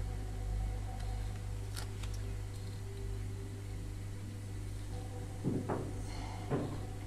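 Faint handling noises of a small plastic stick scraping and tapping in a plastic power-adapter housing while spreading two-part epoxy, over a steady low hum. There are a couple of light clicks about two seconds in and two short scrapes near the end.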